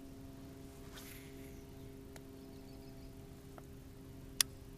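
Fishing rod and baitcasting reel in use during a cast: a sharp click as the cast goes out, a soft splash-like hiss about a second later as the lure lands, and another sharp click near the end, over a faint steady hum.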